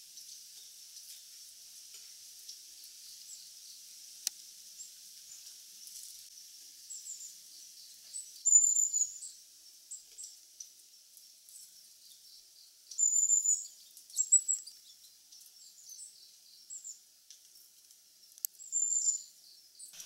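High, thin calls of small songbirds in a tree: scattered short notes, with a few brief trilled calls standing out about eight, thirteen, fourteen and nineteen seconds in, over a steady high hiss.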